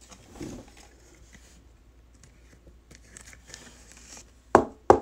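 A sleeved trading card handled and slid into a rigid clear plastic top loader, with faint plastic rustling, then two sharp knocks about half a second apart near the end.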